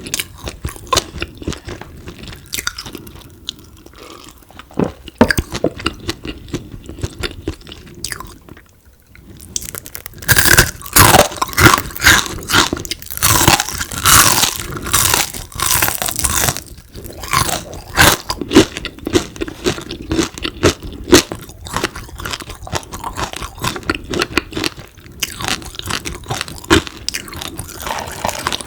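Close-miked crunching and chewing of crispy fried frog. The chewing is softer at first, stops briefly, then turns to louder, denser crunching about a third of the way in before settling back to steady chewing.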